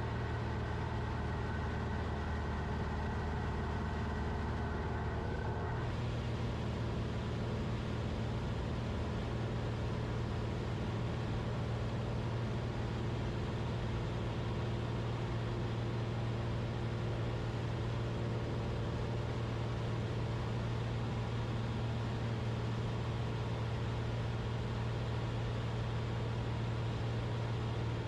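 Cockpit drone of a Cessna 172RG's Lycoming four-cylinder engine and propeller in cruise flight, running steadily. The pitch of the drone shifts slightly about six seconds in and again a few seconds later.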